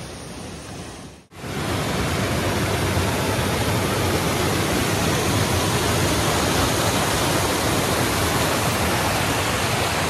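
Dudhsagar Falls' water rushing: a steady, loud roar of falling water. After about a second it cuts off briefly and comes back much louder.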